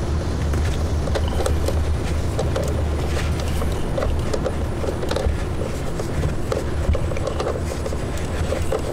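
Scattered light clicks and scrapes of plastic interior trim panels being refitted by hand, over a steady low rumble.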